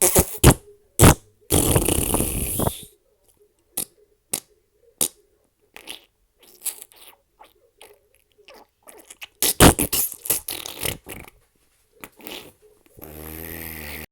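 A string of fart sound effects with gaps between them: a few short sharp pops, a longer noisy one about two seconds in, a quick cluster around ten seconds, and a low rippling buzz near the end.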